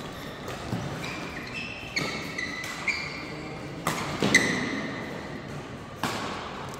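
Badminton doubles rally: rackets striking the shuttlecock about six times at irregular intervals, the hardest hit a little past four seconds in, with sneakers squeaking on the court mat between shots.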